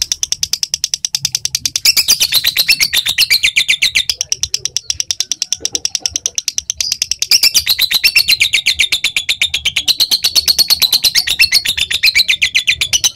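Lovebird giving its long 'ngekek' chatter: a rapid, unbroken string of high chirps, swelling louder in two long runs, about two seconds in and again from about seven seconds to near the end.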